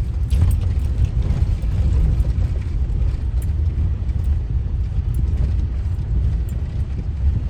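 Steady low rumble of a moving car's engine and tyres on the road, heard from inside the car.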